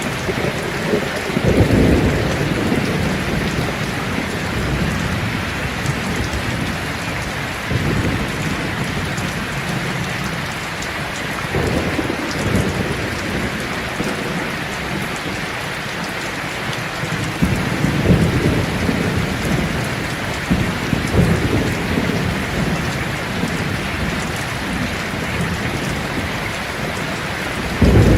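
Steady rain falling, a constant hiss, with low thunder rumbling and rolling in several times.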